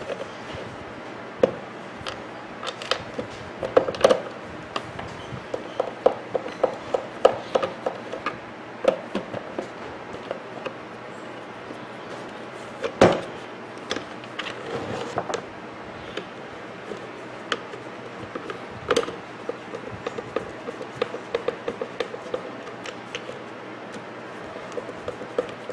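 A hand screwdriver driving screws into a plastic blender base: irregular runs of small clicks and scrapes, with knocks as the plastic base is handled, one louder knock about halfway through.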